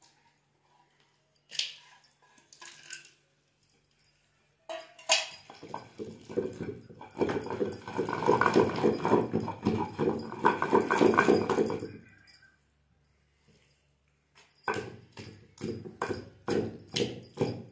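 Pestle pounding and grinding wet peanut chutney in a stone mortar: a dense run of quick strokes for several seconds, a pause, then separate strikes about two to three a second.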